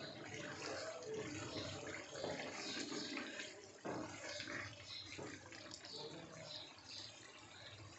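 Wooden spatula stirring a wet taro-root and eggplant curry in a nonstick wok: the thick gravy is turned over in wet, sloshing strokes against the pan, with a sharper stroke about four seconds in.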